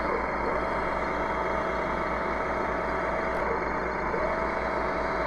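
Tamiya 1/16 M551 Sheridan RC tank's sound unit playing a steady simulated engine idle through its built-in speaker, while the turret traverses with a steady whine. The whine glides up, holds, glides down about three and a half seconds in, then starts again about four seconds in.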